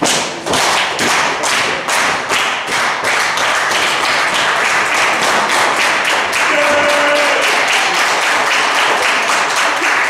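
Wrestling crowd clapping in a steady rhythm over a dense din of cheering, with a held shout standing out briefly near the middle.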